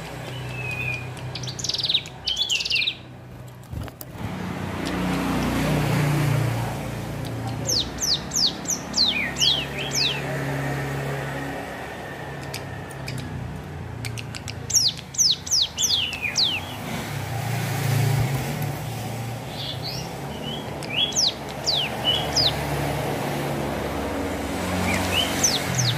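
Ciblek gunung, a prinia, singing in short bursts of quick, high whistles that each slide steeply downward, several notes per burst, repeated every few seconds: a young bird learning its song. A steady low rumble of traffic runs underneath.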